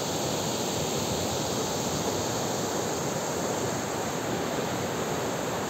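Fast mountain river rushing over boulders: a steady, even rush of white water.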